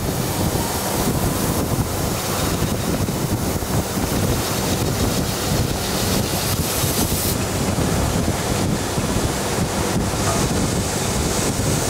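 Abrasive-belt polishing machine running, its sanding belt grinding against a metal pot blank as the pot is polished: a steady, even rushing hiss. The high part of the hiss shifts about seven seconds in.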